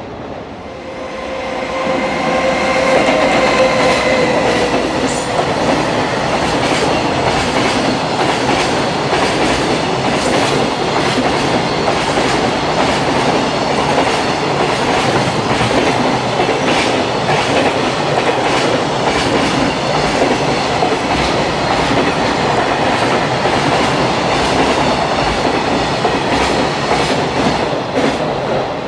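A freight train of container wagons passing close by: a steady rumble of wheels on rail with rapid clicks as the wheels cross rail joints. A held tone with overtones sounds over it for the first few seconds, and the noise swells over the opening seconds.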